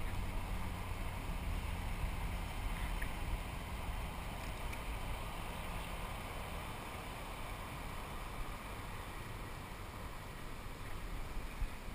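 Steady wash of water and wind noise around a kayak on open water, with a faint low hum in the first few seconds and a light click near the end.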